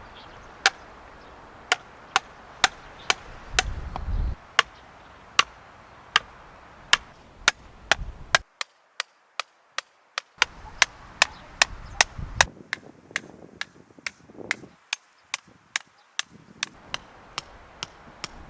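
A steady run of sharp, evenly spaced strikes, about two a second, like a tool chopping or knocking on wood.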